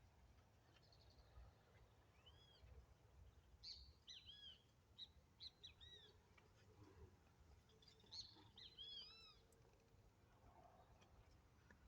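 Faint birdsong: a bird singing two bouts of quick, arched chirping notes, the first from about two seconds in and the second around eight seconds in, over a faint low background rumble.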